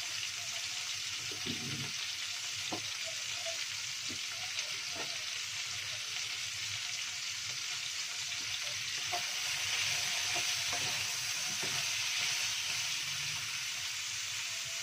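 Carrots, baby corn and white mushrooms sizzling in hot oil in a non-stick wok, a steady hiss that swells a little about two-thirds of the way through. A wooden spatula gives a few light taps and scrapes against the pan as the vegetables are stirred.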